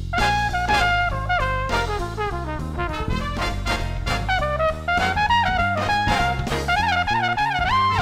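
Background swing jazz music: a trumpet carries a lead melody that steps down and then climbs again, over a bass line and drums.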